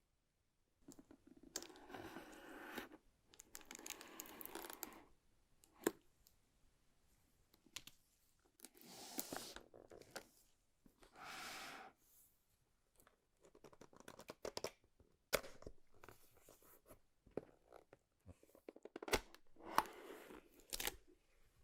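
Keyboard packaging being opened by hand: repeated tearing and rustling bursts a second or two long, with sharp clicks and knocks between them.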